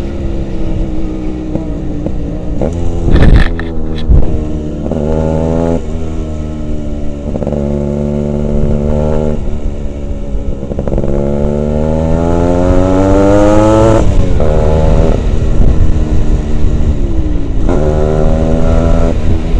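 Yamaha two-stroke motorcycle engine running under the rider, engine speed rising and falling through the gears, with one long climb in pitch about two-thirds of the way in that drops sharply at a gear change. Two sharp knocks come about three and four seconds in.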